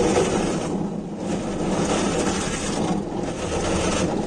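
Automatic car wash heard from inside the car: rotating brushes scrubbing and water spraying over the body and rear window make a loud, steady rushing that swells and eases a few times, over the hum of the wash machinery.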